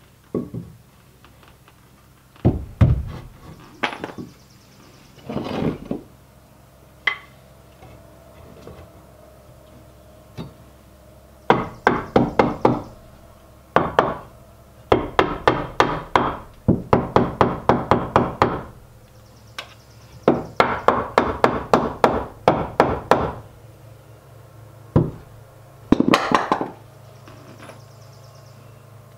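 A hammer striking wood: scattered knocks, then several quick runs of blows at about five a second, as a scrap 2x10 block is driven in between wall studs.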